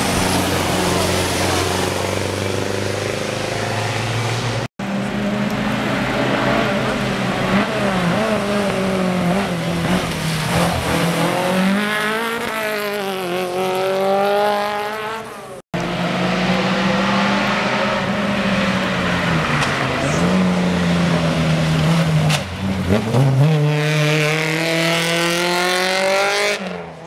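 Rally car engines revving hard through a corner and up the road, the pitch climbing and dropping again and again with throttle and gear changes. The sound cuts off abruptly twice.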